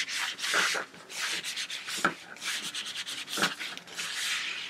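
Small iron pushed back and forth over cotton fabric on a padded pressing board, a scratchy rubbing in repeated strokes, with two light knocks.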